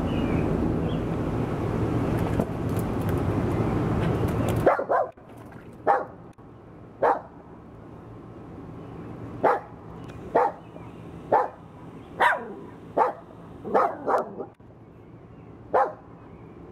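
A steady rushing noise for the first few seconds stops abruptly, then a small dog barks about a dozen short barks at uneven intervals.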